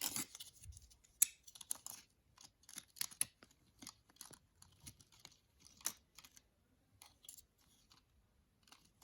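Small plastic and silicone fidget toys being handled and set into a storage box: an irregular run of light clicks, taps and rustles, busiest right at the start.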